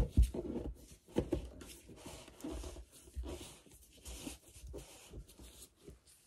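Handling noise from gloved hands moving paint bottles on the covered worktable: a sharp knock at the start, then irregular rustling, scraping and light knocks.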